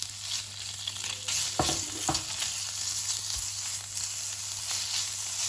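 Pork frying in hot oil, a steady sizzle as it is stirred in the pan, with two short knocks of the utensil against the pan about one and a half and two seconds in.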